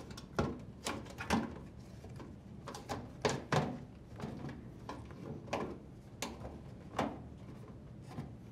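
Rubber door boot seal of an LG front-load washer being pulled by hand off the lip of the washer's front panel: an irregular string of knocks and rubbing sounds as the rubber is worked free around the opening, the loudest a few seconds in.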